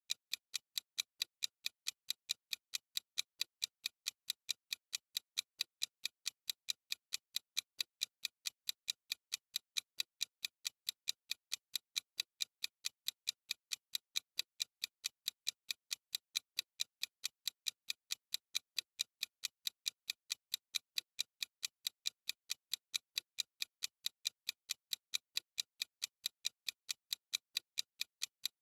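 Clock ticking sound effect: steady, evenly spaced sharp ticks, several a second, with no change in pace.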